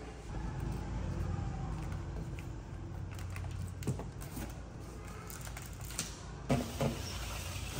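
Light knocks and taps on cardboard as a small monkey pushes and climbs on a flattened cardboard box, the loudest two about six and a half seconds in, over a low steady rumble.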